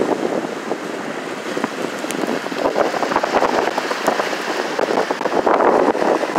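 Choppy, wind-driven waves breaking and washing over a flooded shoreline walkway, with wind buffeting the microphone. The rush of water grows louder near the end.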